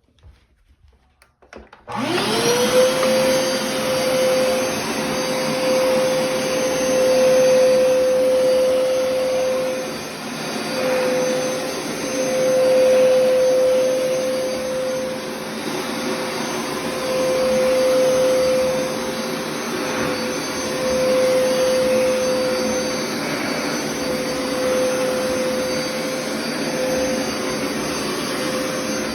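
A floor-cleaning machine's suction motor switches on about two seconds in, after a few faint clicks, spinning up quickly to a steady whine over a rushing of air, which swells and dips a little as it is worked over the carpet runner.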